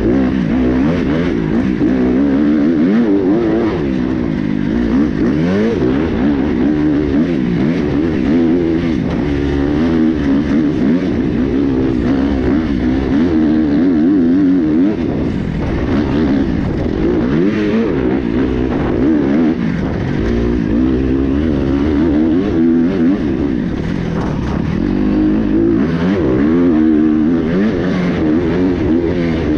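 2025 Kawasaki KX250X's 249 cc four-stroke single-cylinder engine heard on-board while the dirt bike is ridden along a trail, the revs rising and falling every second or two as the rider works the throttle and gears.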